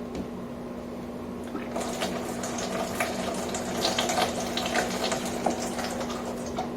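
Water pouring and splashing into a humidifier's water tank as it is filled, starting about two seconds in.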